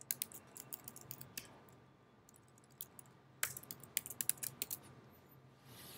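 Computer keyboard being typed on, faint key clicks in two short bursts, the first at the start and the second a little past the middle.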